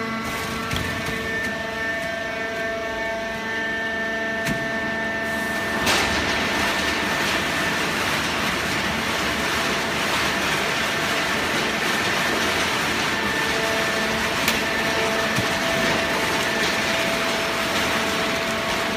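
Hydraulic paper baler running steadily while baling shredded paper: a hum of several steady tones over a rushing noise that grows louder about six seconds in.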